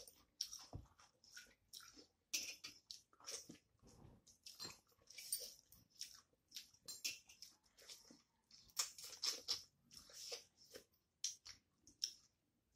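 Close, wet chewing and lip-smacking in quick irregular clicks as a person eats rice and curry by hand, with fingers mixing rice on a metal plate.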